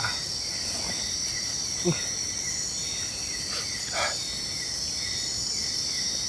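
Night insects, crickets among them, keeping up a steady high-pitched chorus, with a short sound about two seconds in and another about four seconds in.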